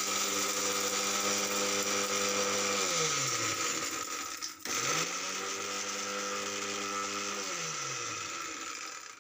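Electric mixer grinder running, grinding mishri (crystallised rock sugar) into powder. It winds down about three seconds in, starts up again just before the five-second mark, and winds down once more about eight seconds in.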